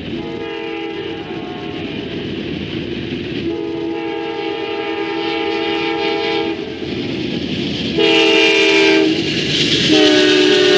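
A train's multi-chime air horn sounds a chord in four blasts: about a second, then about three seconds, then a short one, then a long one that is the loudest. Under it the train rumbles, growing louder as it approaches.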